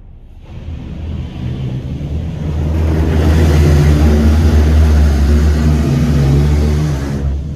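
Water spray from a PDQ LaserWash 360 touchless car wash hitting the car, heard from inside the cabin: a hiss that starts about half a second in, grows louder a few seconds in and thins out suddenly near the end, over a steady low hum.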